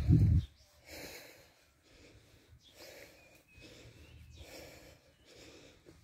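A walker's heavy breathing close to the microphone, a breath sound about once a second, with a loud low rumble in the first half second.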